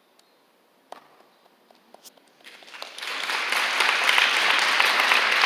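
A hushed hall with a few faint knocks for about two seconds, then audience applause starts, swells within half a second and goes on steadily.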